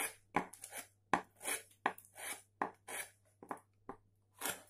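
Hand-pushed V-gouge shaving into a wooden relief, a quick series of about a dozen short cuts, roughly three a second, carving fine fur strands.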